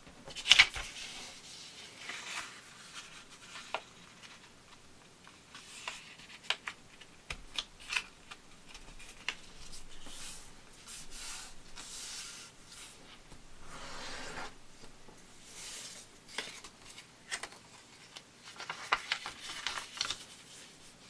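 A sheet of grid paper being handled and folded on a cutting mat. The paper rustles and slides, with sharp crackles as folds are pressed into creases. The loudest crackle comes about half a second in.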